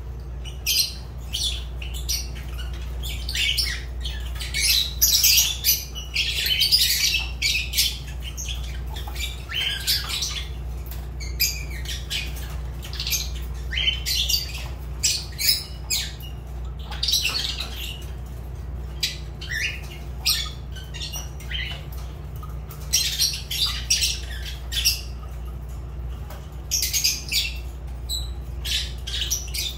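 Fischer's lovebirds calling: shrill, high-pitched chirps and squawks in quick clusters, coming and going throughout, over a steady low hum.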